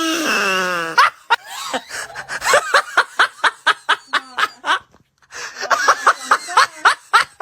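A drawn-out vocal cry falling in pitch, followed by bursts of rapid, snickering laughter.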